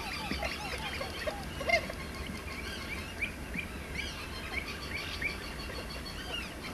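Waterbirds calling. A quick run of low honking calls fills the first two seconds, and a steady series of higher, ringing calls, about two a second, runs throughout. One call is louder just under two seconds in.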